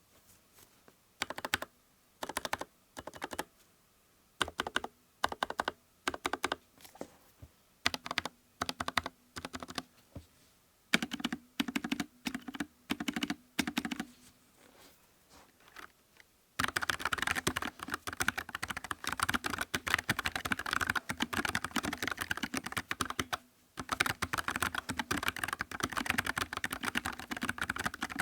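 Nuphy Air75 low-profile mechanical keyboard with Gateron low-profile brown (tactile) switches being typed on. Short bursts of keystrokes come first, then from about sixteen seconds in fast continuous typing, with a brief pause near the end.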